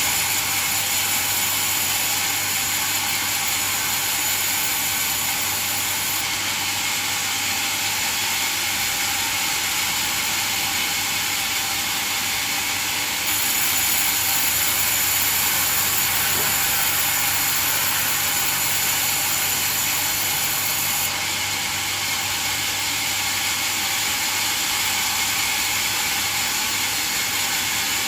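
Sawmill bandsaw running steadily through coconut wood, a constant mechanical hiss and whir with a high ringing edge; the level steps up or down slightly a few times.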